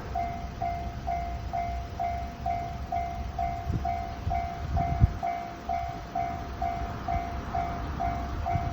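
Japanese level-crossing electronic warning bell ringing steadily, about two and a half to three dings a second, over a low rumble with a couple of dull thumps about four to five seconds in.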